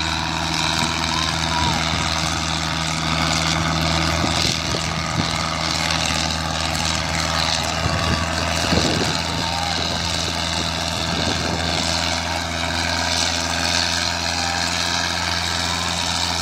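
Belarus 510 tractor's diesel engine running steadily at high load while pulling a disc harrow, pouring out black smoke. Voices of a crowd shouting over it.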